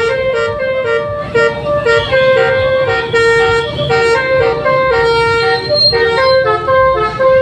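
Multi-tone 'telolet' musical horns of Indonesian buses sounding in a horn battle, playing quick melodies of steady notes that change pitch every fraction of a second without a pause, over a low rumble.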